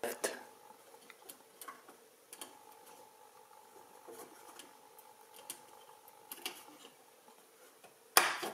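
Light clicks and taps of an 8-pin DIP amplifier chip being handled and pressed into a circuit board by hand, with a sharp click at the start and a louder knock just before the end, over a faint steady hum.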